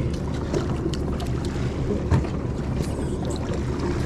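Steady low hum of a boat's engine running, with wind on the microphone and scattered small clicks; a single sharp knock about two seconds in.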